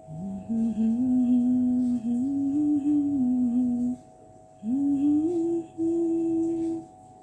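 A voice humming a slow melody in two long phrases of held, gently gliding notes, with a short break between them, over a faint steady drone.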